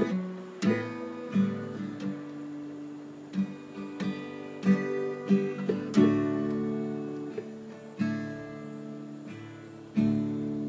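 Acoustic guitar playing an instrumental passage with no singing: a run of picked notes and chords, then chords struck about every two seconds and left to ring out.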